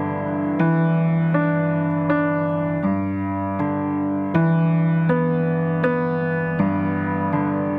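Background music: a gentle piano or electric-piano piece, chords struck at an even, unhurried pace.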